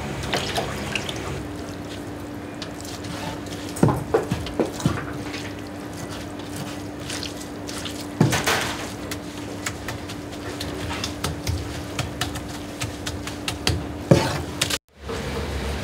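Kitchen food preparation: wet handling and splashing of food in a steel tray by a tap, with several sharp knocks against the counter or tray, over a steady hum. The hum starts a second or so in, and all of it cuts off abruptly near the end.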